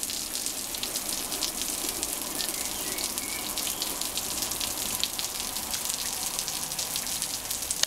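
Spray of water pattering onto wet stone patio slabs: a steady hiss with dense, fast drop ticks.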